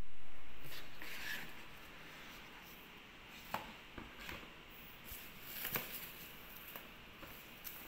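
Handling of a cardboard fruit gift box and its white foam net packing. A sliding, rustling noise at the start fades over about two seconds, followed by scattered light taps, clicks and rustles as the box and foam are handled.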